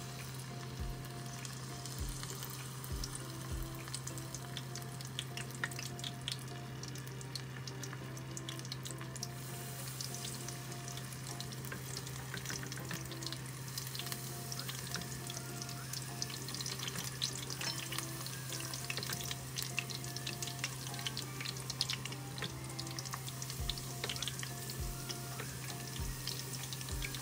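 Battered shrimp deep-frying in hot oil for tempura: the oil sizzles and crackles around the batter. The crackling grows busier from about ten seconds in, as more shrimp and drizzled batter go into the oil.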